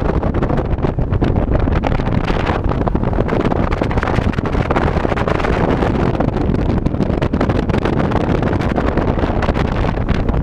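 Ranger bass boat running fast across open water: heavy wind buffeting on the microphone over the steady sound of the outboard motor and the hull on the water.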